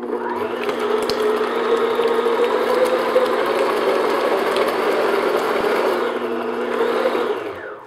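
Electric stand mixer running steadily, its paddle beating softened butter in a glass bowl until it is smooth; the motor switches off and winds down near the end.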